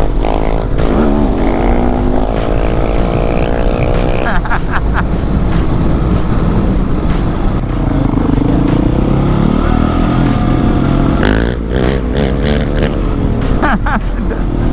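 Motorcycle engine under way, its pitch climbing for about four seconds until a break like a gear change, then running lower and steadier with another rise and fall. Wind rumbles on the microphone throughout.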